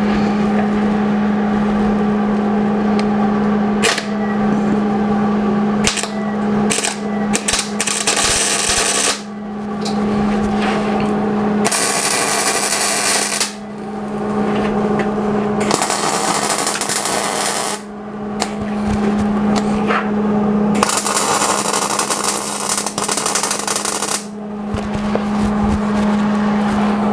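MIG welder arc crackling in several bursts a few seconds long, with short pauses between, over a steady low hum.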